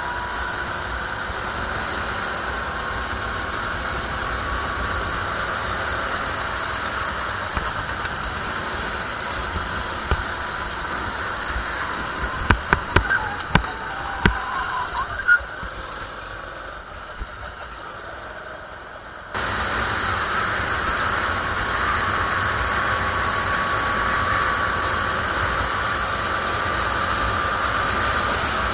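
CRG 270cc rental kart engine running on track, heard onboard, its pitch rising and falling with speed. About twelve seconds in there is a cluster of sharp knocks, then the engine runs quieter for a few seconds before it comes back suddenly to full level.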